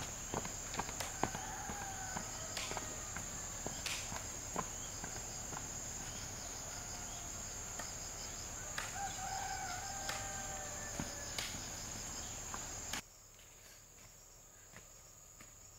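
Rural outdoor ambience: insects droning steadily at a high pitch, with chicken calls twice and scattered light knocks. The level drops suddenly about 13 seconds in, leaving a fainter insect drone.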